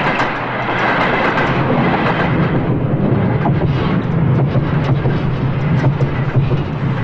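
A train passing, a heavy noisy rumble with scattered clatter. A low steady hum builds from about two and a half seconds in.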